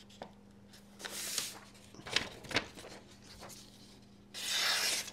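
A fixed-blade knife with a D2 steel blade slicing through a sheet of paper: two hissing slicing strokes, one about a second in and a longer, louder one near the end, with a couple of light clicks between them.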